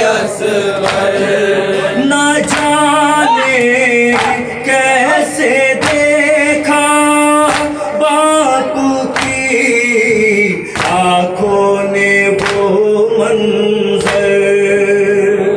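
A man reciting a noha, a Shia mourning lament, in a wavering sung voice through a microphone, with the men around him joining in. Sharp chest-beating strokes of matam keep a steady beat of a little under one a second.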